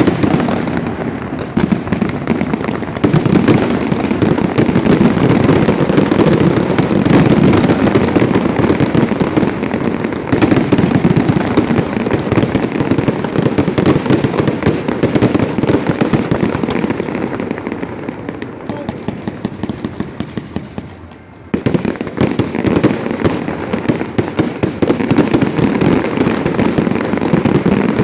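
Fireworks display: a dense, continuous barrage of booming bursts and crackling. It dies down about two-thirds of the way through, then starts again suddenly at full strength.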